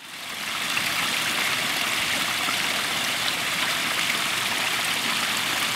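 Steady rush of running water, fading in over the first half second.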